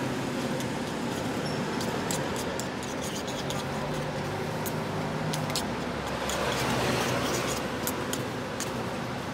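Metal fork beating raw egg with sliced surf clam in a ceramic bowl: irregular sharp clicks of the tines against the bowl over a steady background hum.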